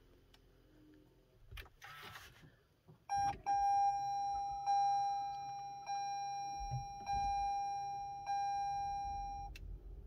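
Toyota RAV4 Prime's electric A/C heat-pump compressor sounding a loud, horn-like steady tone at start-up, with a low hum beneath it: the known 'train horn' compressor noise on starting after the car has sat in the cold, which Toyota's service bulletin software update cures. The tone starts about three seconds in, swells again about once a second, and cuts off shortly before the end.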